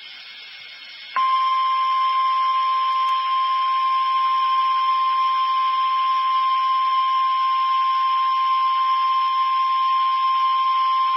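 NOAA Weather Radio warning alarm tone: a single steady tone of about 1 kHz that comes on sharply about a second in and holds unchanged for about ten seconds, over faint radio hiss. It signals that a weather warning is about to be read.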